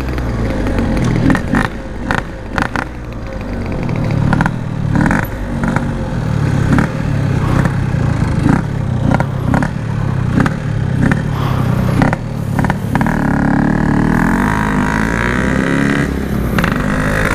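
Yamaha RX-King two-stroke motorcycle engine being ridden, its revs rising and falling through the gears, with wind buffeting on the rider's microphone.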